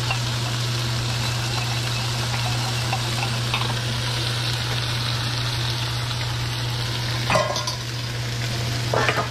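Kung pao chicken stir-fry with its sauce sizzling steadily in a hot wok while a cornstarch slurry is stirred in. Two sharper knocks stand out near the end.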